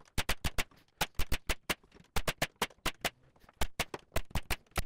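Pneumatic brad nailer firing brads through a 6 mm MDF cabinet back into the carcass: sharp shots in quick runs of about half a dozen, with short pauses between runs.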